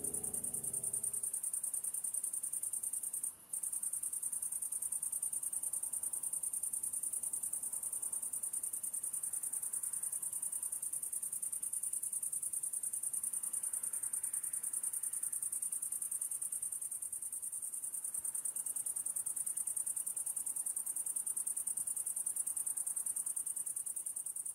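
Steady, high-pitched insect stridulation, a continuous dense chirring, that cuts out briefly about three seconds in.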